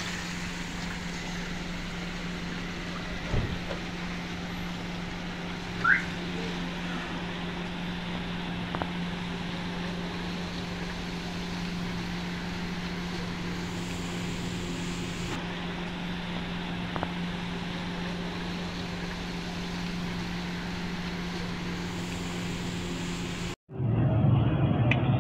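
Hot oil sizzling steadily as food deep-fries in a large karahi, over a steady low hum, with a short squeak about six seconds in. Near the end the sound cuts to louder frying as a big karahi of pakora is stirred.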